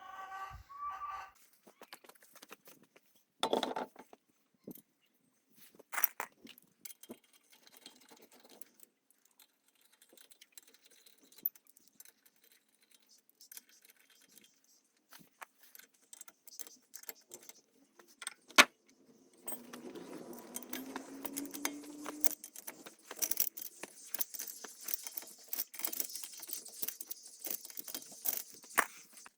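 Metal parts and hand tools clinking and knocking in scattered single strikes, a few of them louder. Near the end this turns into a dense run of rapid metallic rattling and scraping.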